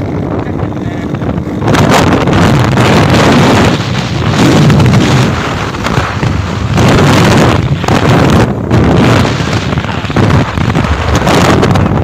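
Wind buffeting the phone's microphone while riding a bike, loud and gusting, rising sharply about two seconds in and then surging and dipping every second or two.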